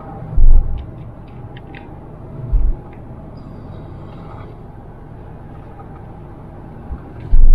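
A car driving, with a steady low rumble of engine and road noise. Heavy low thumps come about half a second in, again around two and a half seconds, and once more near the end.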